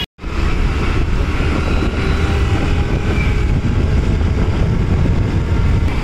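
Steady street noise of road traffic, a loud even rumble with no distinct events, following a brief dropout right at the start.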